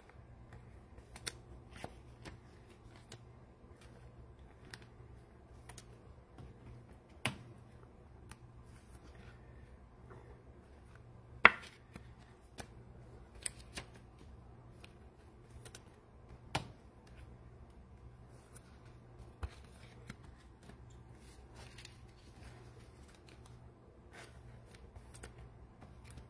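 Faint scattered clicks and taps of trading cards and card packs being handled, with a sharper tap about eleven and a half seconds in, over a low steady hum.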